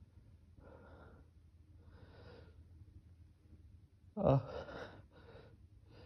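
A person's faint gasping in-breaths building up, then one sudden loud sneeze about four seconds in, followed by two short breaths.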